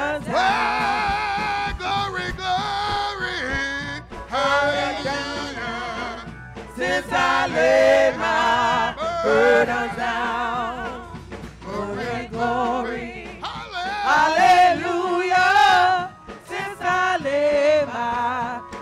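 Women's gospel praise team singing a praise song into microphones, with long held notes in heavy vibrato and sliding runs, broken by a brief pause near the end.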